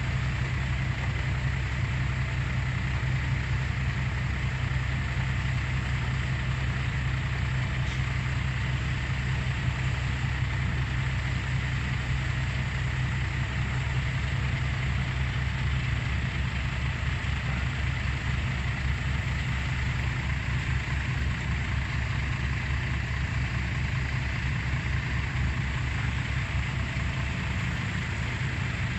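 Heavy diesel engine of earth-moving machinery running steadily, a low even drone whose low hum shifts slightly about halfway through.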